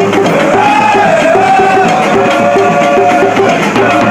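Live Nigerian traditional drum ensemble playing, with a quick, even beat of short percussion strokes and a bass drum. A long wavering melody note is held above the drums from about half a second in until near the end.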